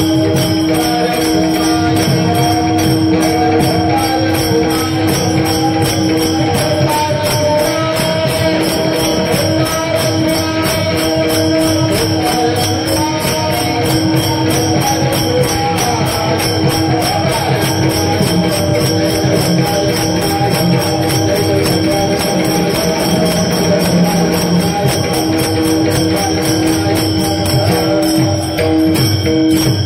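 Marathi devotional kirtan music: fast, continuous jingling of small hand cymbals over a steady held drone note.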